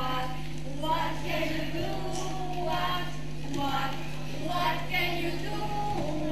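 A group of young children singing together, with a woman's voice among them, over a steady low hum.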